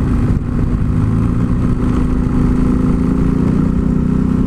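Yamaha XT 660 Z Ténéré's single-cylinder engine running at a steady pace while riding, its pitch holding even throughout.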